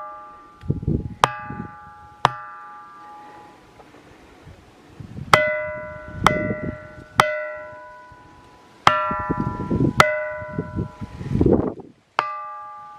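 A ringing rock struck repeatedly with a small hand-held stone: about nine sharp strikes, each ringing out like a bell with several clear tones and fading over about a second. It is a perfect bell sound.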